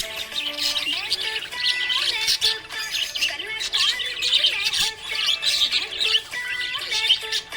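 Budgerigar chirping and chattering in quick, high calls with no break, over background music with held notes.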